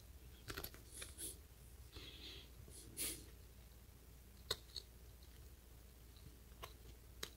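Faint, scattered clicks and soft rustles from a plastic waterproof phone pouch being handled, fingers on its slide locks.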